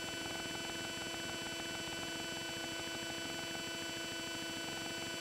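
Steady electrical hum and hiss with several faint high steady tones, unchanging throughout: the background noise of the recording equipment with nobody speaking.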